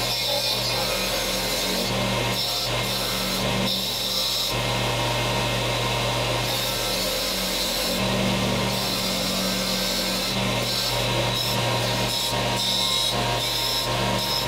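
Benchtop combination belt and disc sander running with a steady motor hum. A small wooden handle is pressed against the sanding disc again and again to round it off, giving a grinding rasp that comes and goes with each pass.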